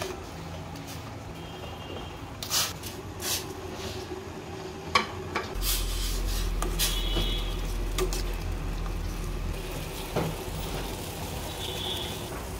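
Utensil stirring and clinking against a cooking pot, with a few sharp knocks between about two and six seconds in, over a steady low hum.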